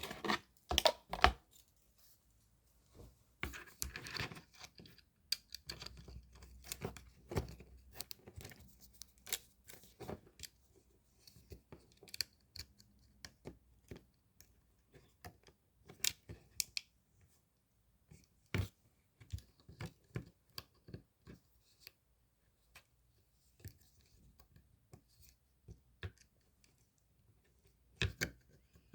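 Irregular small clicks, taps and scrapes of hand work on small hard objects, with a brief scratchy stretch around four seconds in.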